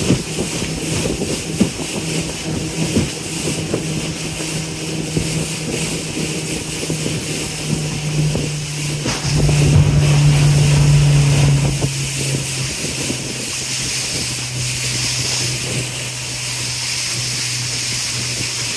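River cruise boat's engine running with a steady low hum over rushing air and water noise. The hum grows louder about halfway through, then steps down to a lower pitch about two-thirds of the way in.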